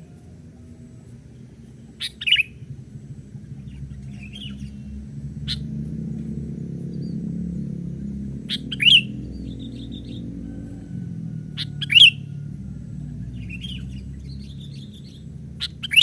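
Sooty-headed bulbuls (kutilang) calling: a short, sharp chirp about every three to four seconds, with softer chirps in between. A low rumble swells and fades in the middle.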